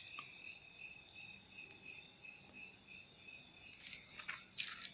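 Crickets and other night insects chirping steadily, a high, evenly pulsing chorus.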